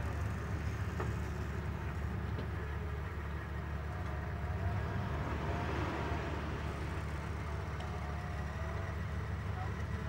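Off-road vehicle engine running steadily at low speed on a trail, a continuous low rumble.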